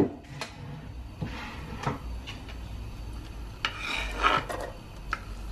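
A metal fork scraping chopped red onion off a wooden chopping board into a frying pan, with a few light knocks of utensil on board and a sharp clatter at the very start.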